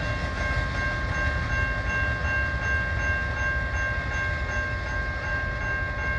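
Freight cars of a Canadian National train rolling away on the rails: a steady low rumble with several steady high-pitched tones held over it.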